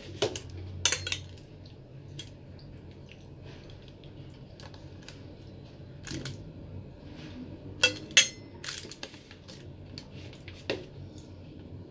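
Close-up eating sounds of someone eating rice and dried milkfish with bare hands: scattered small clicks and smacks of chewing and of fingers working the food in a ceramic bowl. Two sharper clicks come close together about eight seconds in.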